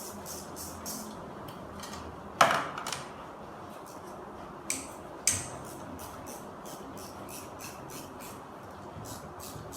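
Metal clanking during hands-on work on an automatic transmission: one loud, sharp clank that rings briefly, then two lighter knocks a couple of seconds later. Under it runs a steady hiss that pulses evenly, about three to four times a second.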